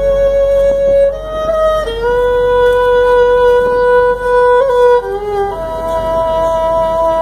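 Violin playing a slow melody of long held notes, with a band behind it.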